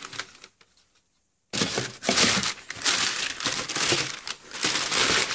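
Tissue paper crinkling and rustling as sneakers are handled in their shoebox. There is a short rustle at the start, then a loud, continuous crinkling from about a second and a half in.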